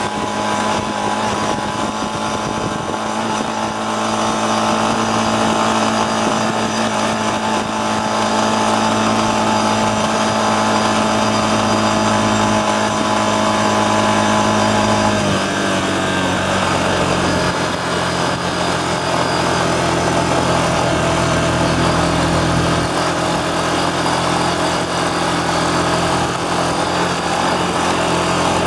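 ATV engine running steadily while riding along, its note stepping down to a lower pitch about halfway through.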